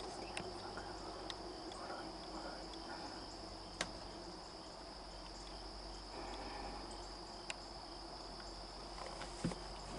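Crickets calling in a steady, high-pitched drone, with two faint sharp clicks, one about four seconds in and one near eight seconds.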